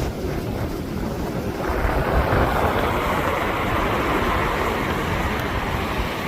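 Storm surf breaking and washing up the beach, under strong wind buffeting the microphone with a low rumble. About a second and a half in, the hiss of the surf swells louder and holds.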